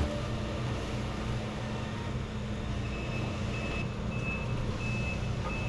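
Heavy tracked machine's engine running steadily under load; from about three seconds in, its travel alarm beeps at a steady pace.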